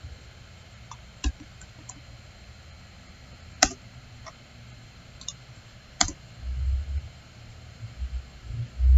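Computer mouse clicking: a few sharp single clicks a couple of seconds apart, with fainter ticks between them. Low dull thumps come in the last few seconds.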